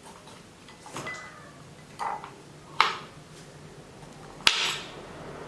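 Kitchen utensils and a drinking glass knocking and clinking on a counter as limes are prepared for squeezing: four sharp knocks about a second apart, the first ringing briefly, the last two the loudest.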